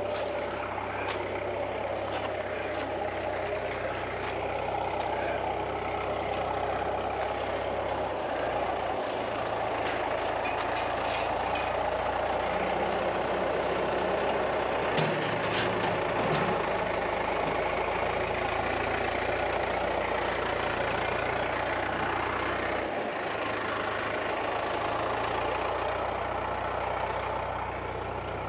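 Tractor engine running steadily, its pitch shifting a few times as the engine speed changes, with a few knocks and rattles around the middle.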